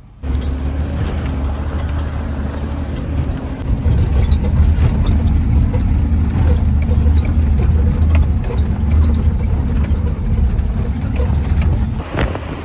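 Off-road vehicle driving, a steady low engine and road rumble that begins suddenly and eases off near the end.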